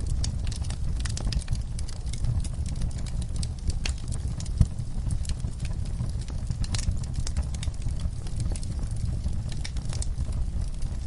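Wood fire burning in a fireplace: a steady low rumble of flames with irregular crackles and pops, and one sharper pop about four and a half seconds in.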